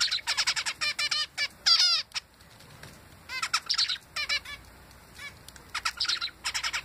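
Male zebra finch singing: three bouts of quick repeated notes, with short pauses between.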